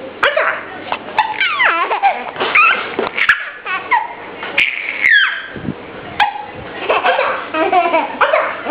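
Baby laughing in high, squealing bursts that rise and fall in pitch, broken now and then by short, sharp hiccups.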